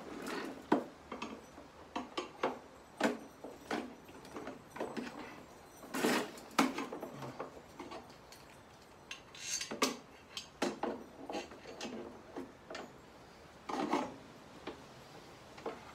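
Bosch Rotak 34-13 lawnmower handle tube knocking, clicking and scraping against the plastic mower deck as it is worked into its mountings. The knocks come irregularly, with the loudest just under a second in and again at about six seconds.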